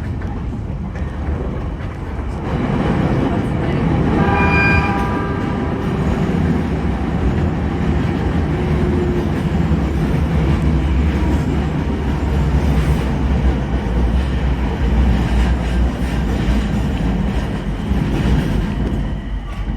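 E721 series electric train running, heard from inside near the front: a steady low rumble of wheels and running gear that grows louder about two seconds in. A brief high-pitched tone, about half a second long, sounds some four seconds in.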